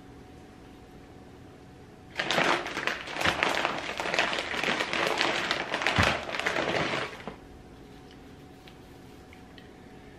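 Plastic bag of shredded mozzarella crinkling and rustling as a hand digs into it and pulls out cheese; a dense crackle starts about two seconds in and lasts about five seconds.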